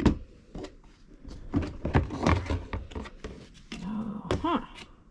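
Cardboard shipping box being opened and handled: a sharp knock at the start, then scattered knocks, scrapes and rustling of cardboard and packing. A short vocal sound rises and falls about four seconds in.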